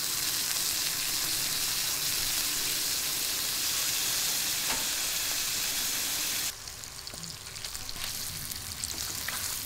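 Beef intestines (daechang) and pork belly sizzling steadily on a hot round griddle plate. About six and a half seconds in, the sizzle turns quieter and more crackly.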